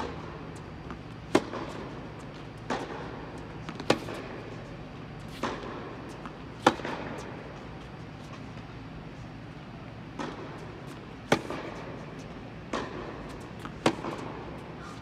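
A tennis rally: sharp pops of the ball off the rackets and the court, about ten in all, a second or so apart, with a pause of about three seconds midway. The loudest pops come every two and a half seconds or so. Each one echoes in the hall.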